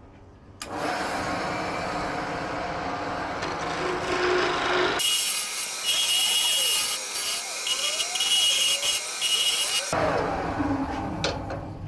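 Wood lathe starting up suddenly about half a second in and running while a hand-held turning chisel cuts a spinning wooden dowel blank: a steady scraping cut. From about halfway to near the end the cut turns harsher and hissier, with a high whine and short squeals.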